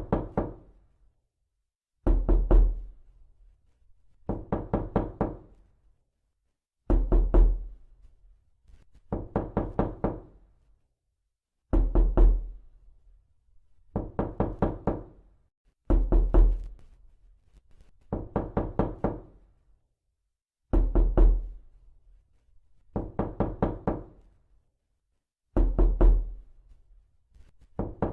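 Repeated knocking in quick bursts of four to six raps, one burst every two seconds or so. Louder bursts with a heavy low thud alternate with softer ones.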